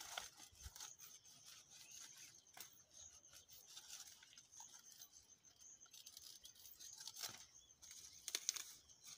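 Faint rustling and scraping of stiff sisal leaves being handled and cut with a panga, with a few sharp knocks spread through, the loudest a quick run of strikes near the end.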